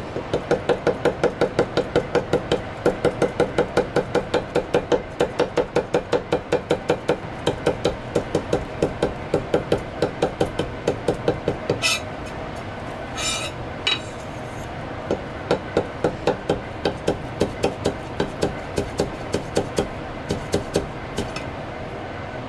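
Chinese cleaver chopping fast and evenly on a thick plastic cutting board, about four to five strokes a second, mincing aromatics. About twelve seconds in the chopping stops for a few seconds, with one short scrape. It then resumes in a less even run.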